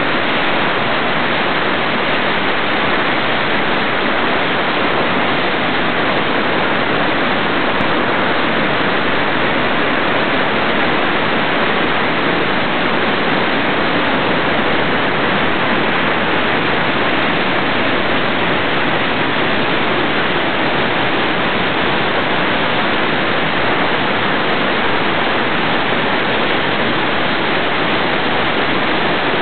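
Hood River in flood, a steady, unbroken rush of churning whitewater at flood stage.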